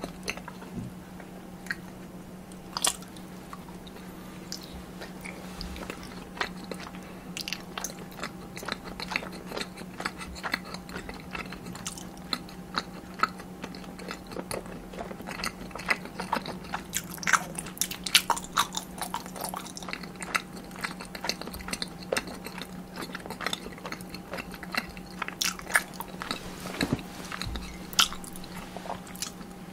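Close-miked eating: a person biting and chewing tteokbokki rice cakes and fried cheese sticks, with many short crunchy and wet mouth clicks that grow busier in the second half. A faint steady electrical hum runs underneath.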